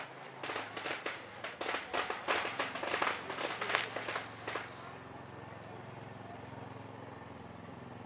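A string of firecrackers crackling in rapid, overlapping pops for about four seconds, then stopping. Faint insect chirps repeat in the background.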